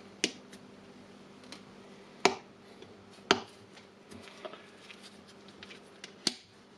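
Four sharp clicks, spread across a few seconds, with lighter ticks between them, as the carbon brushes are fitted into an angle grinder's brush holders.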